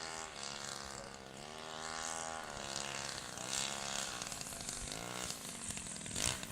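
Radio-control scale Sopwith Pup model's engine buzzing in flight, its pitch rising and falling several times as the plane passes and the throttle changes. A brief sharp noise near the end.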